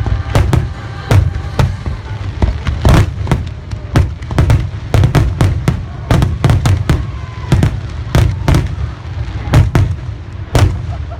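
Fireworks display finale barrage: aerial shells bursting in quick succession, several bangs a second, over a continuous low rumble.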